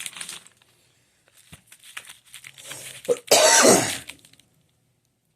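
Paper-wrapped firecracker packs rustling and crinkling as they are handled, with a loud, harsh cough about three seconds in.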